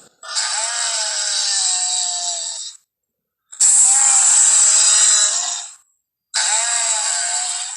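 Film triceratops sound effect: three drawn-out, harsh creature calls of about two seconds each, separated by short silent gaps, with a pitch that bends up and down in each call.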